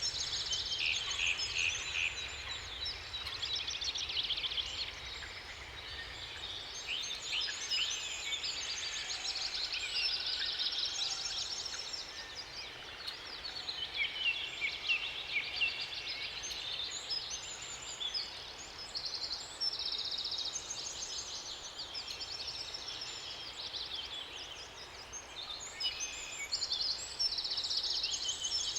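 Several songbirds singing at once in a continuous dawn-chorus-like mix of overlapping fast trills and chirps.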